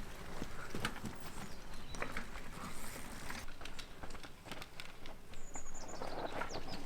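Mountain bike tyres, wheels and frame clattering over rocks: irregular clicks and knocks.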